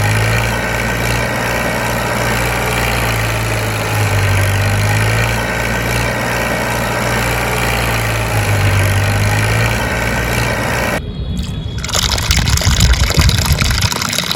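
Engine idling steadily with a low hum; about eleven seconds in it cuts off abruptly and water gushes and splashes.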